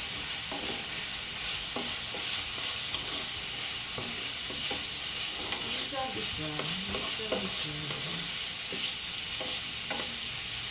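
Beef frying in a pan: a steady sizzling hiss, with occasional short clicks from the stirring utensil.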